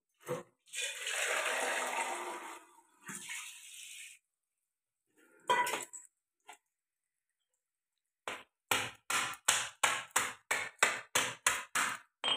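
Water poured from a steel mug and splashing as a crab is rinsed, then a rapid run of about a dozen sharp knocks, about three a second, from a pestle pounding a crab's shell to split it.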